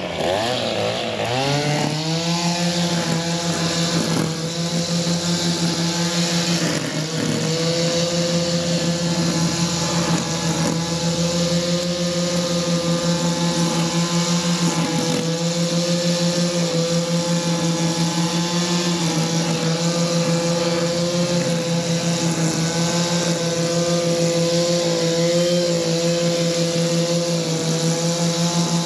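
Two-stroke engine of an Echo SRM-266T string trimmer with a newly replaced carburettor, held at high speed. Its pitch wavers and dips briefly in the first couple of seconds, then runs steady, showing the new carb holding revs.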